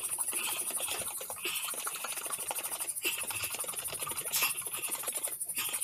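Cream being shaken hard by hand in its closed pot, sloshing in a fast, steady rhythm. The cream is starting to turn: small lumps of butter are forming.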